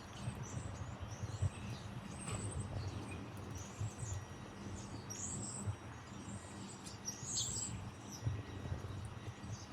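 Small birds chirping, short high calls scattered throughout, over an uneven run of soft low thumps.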